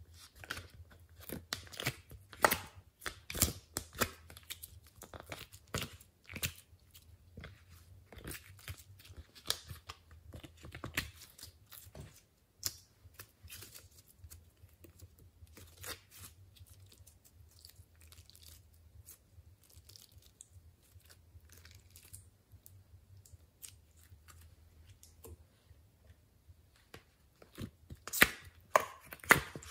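Sticky foam slime being pulled and popped out of a plastic heart-shaped ice cube tray and kneaded by hand. It gives a run of sharp sticky crackles and clicks, busiest in the first few seconds and again near the end.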